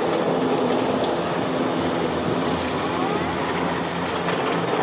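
Automatic car wash running over the car, heard from inside the cabin: a steady rush of water spraying and sheeting over the windshield and body, with a low steady hum of the wash machinery under it.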